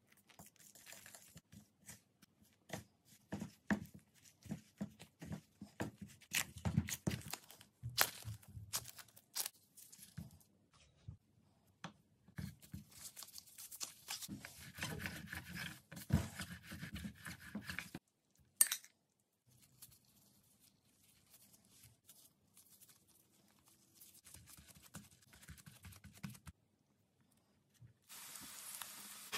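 Kitchen handling sounds: chopsticks clicking and scraping in a mixing bowl as flour is stirred with water, then soft tearing and rustling as dough is worked by gloved hands. Near the end oil starts sizzling steadily as a filled dough pie is pressed into a frying pan.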